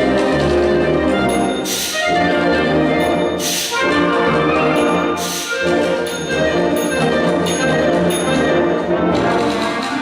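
Concert wind band playing, with the brass prominent and held chords. Three loud crash hits come about two seconds apart in the first half.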